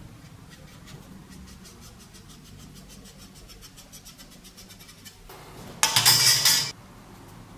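Felt-tip marker scratching across the rusty steel of a cleaver blade as a cutting line is traced, a fast run of faint ticks for about five seconds. About six seconds in, a loud scraping rush lasts under a second.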